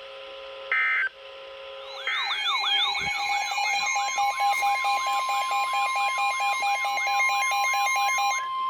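NOAA Weather Radio alert on a weather radio receiver. A short burst of SAME digital header data comes about a second in. About a second later the receiver's warbling alert siren starts, rising swoops about three a second. Roughly two seconds after that the steady warning alarm tone joins it, signalling a new severe thunderstorm warning. Both stop abruptly just before the end.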